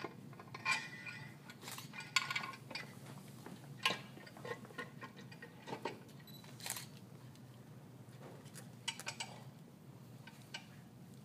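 Light metallic clinks and knocks, scattered irregularly, as the two halves of an aircraft engine crankcase are handled and worked together over the crankshaft and camshaft; the loudest knock comes about two seconds in.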